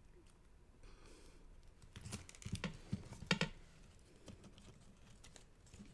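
Cardstock pieces of a pop-up card rustling and lightly tapping as they are handled and the card is turned over. The noise is faint and gathers about two seconds in, loudest near the middle.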